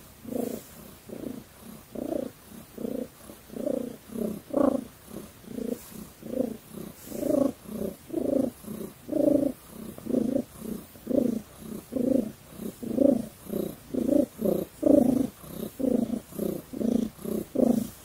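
Domestic cat purring close up, in a regular rise and fall of just under two pulses a second.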